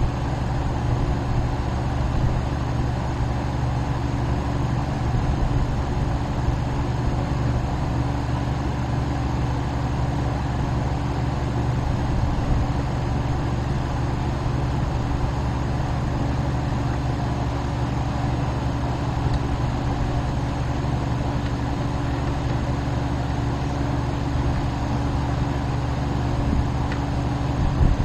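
Steady vehicle engine and road rumble, unchanging, with a brief bump near the end.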